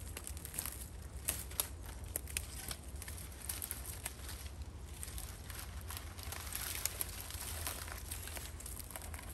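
Dry dead twigs and branches of a fallen conifer snapping and crackling as they are broken off by hand, with brush rustling; the snaps come irregularly throughout.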